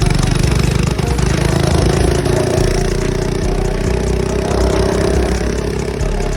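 Mini bike's small engine running steadily, its pitch rising slightly through the middle and settling near the end.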